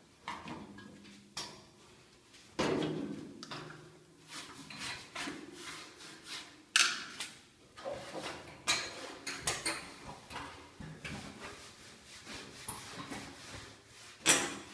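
Sheet-metal cabinet panel of a SANYO washing machine being handled and fitted: a run of clanks, knocks and scrapes of metal. A loud clank about two and a half seconds in rings briefly, and there is another sharp knock near the end.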